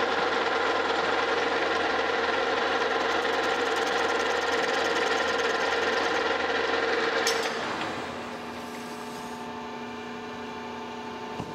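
Metal lathe running with a steady gear whine while a chamfer tool lightly cuts the corners of bronze crosshead shoes. About seven seconds in, a clunk as the lathe is shut off, and the sound drops to a quieter steady hum as the spindle stops.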